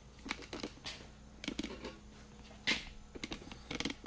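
Scattered short plastic-and-metal clicks and knocks from a Poulan Pro 42cc chainsaw being handled, with two sharper knocks near the end.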